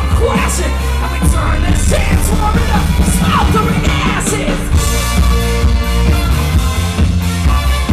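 Live band playing loud rock music, with a singer's voice sliding over drums, bass and cymbals in the first half, then held instrumental notes from about five seconds in.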